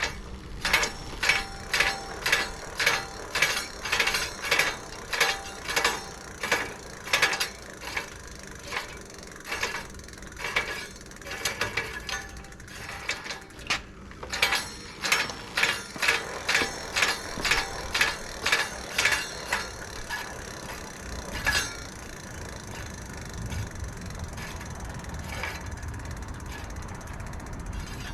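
A ratchet wrench clicking in repeated back-and-forth strokes, about two a second, with a few short pauses, as a bolt is turned to set the gap between the e-bike's disc brake caliper and rotor. The clicking stops after about 20 seconds, leaving a low background.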